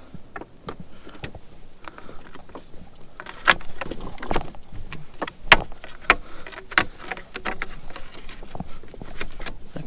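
A white PVC-pipe rod holder being jammed down between riverbank rocks: irregular knocks, clacks and scrapes of the plastic pipe against stone and of loose rocks shifting. The sharpest knock comes about five and a half seconds in.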